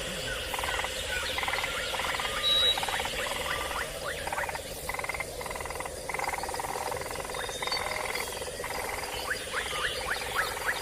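Frogs calling in a chorus: repeated short pulsed calls and quick rising chirps, over a steady high drone.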